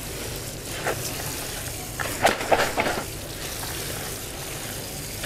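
Water spraying from a PVC-pipe hose nozzle onto a colander full of fresh chillies, a steady hiss. A few short knocks or rustles come about a second in and again between two and three seconds in.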